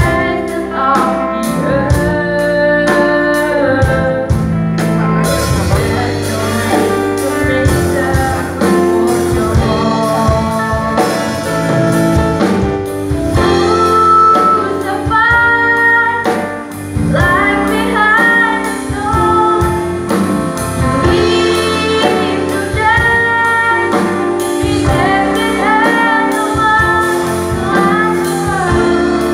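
A girl singing a slow worship song into a microphone over a live band's accompaniment, with a rapid ticking beat in the first few seconds that then drops out.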